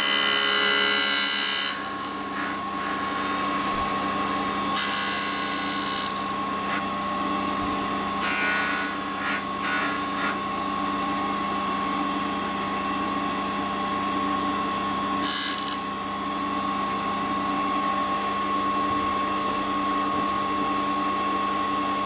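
Single-lip cutter grinder's spindle running with a steady whine while the front end of a two-flute end mill is fed across the grinding wheel. Bursts of hissing grinding come in several passes: at the start, around five seconds, from eight to ten seconds, and briefly around fifteen seconds. This is the second side's cutting edge being resharpened, with the passes taken past the end mill's center line.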